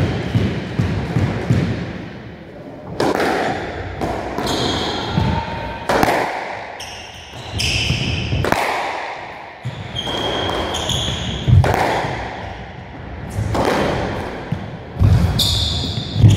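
Squash rally: the ball cracks off the rackets and walls every two to three seconds, while court shoes squeak and thud on the wooden floor.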